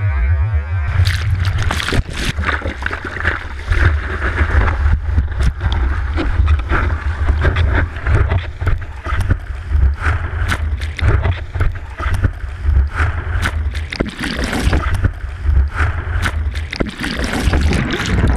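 Water rushing and splashing against a surfboard-mounted action camera as the board rides a breaking wave, with wind buffeting the microphone in a heavy low rumble and constant spray hitting the housing. Right at the end the hiss goes dull as the camera goes under water.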